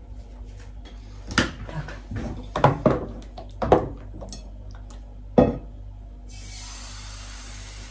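Kitchen clatter of a plate and frying pan being knocked and set down, four or five sharp clinks, then from about six seconds in a steady frying sizzle starts in the hot pan as pancakes cook.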